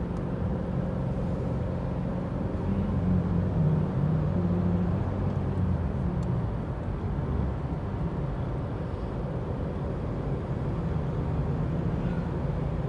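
Car driving through a road tunnel, heard from inside the cabin: a steady low hum of engine and tyres, a little louder a few seconds in.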